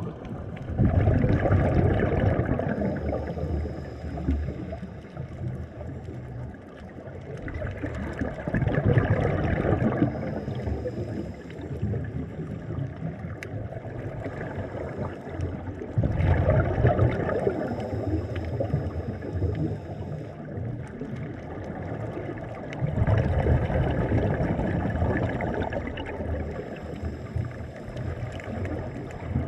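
Scuba regulator breathing heard underwater: four bursts of exhaled bubbles, each lasting a few seconds and coming about every seven seconds, with quieter stretches of inhaling between.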